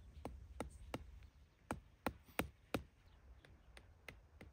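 Mallet knocking a plastic tent stake into the ground: a steady run of sharp taps about three a second, with the loudest three strikes near the middle.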